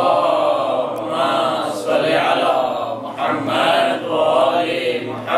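A man's voice chanting Arabic in slow, drawn-out phrases, each note held with a wavering pitch: the melodic opening invocation of an Islamic sermon.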